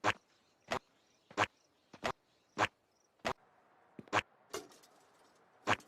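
Squidward's cartoon footstep sound effect, dubbed over a walking character, repeating as a steady walk of about nine short steps, one roughly every two-thirds of a second.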